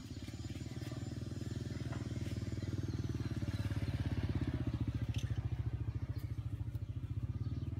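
A small engine idling steadily with a fast, even putter, getting a little louder over the first few seconds.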